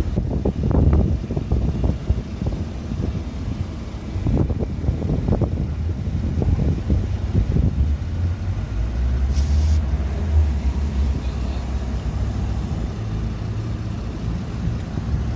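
Wind rumbling on the microphone, with a steady low hum for a few seconds about halfway through.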